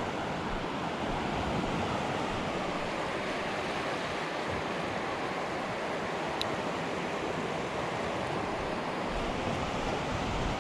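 Ocean surf breaking and washing steadily on the beach.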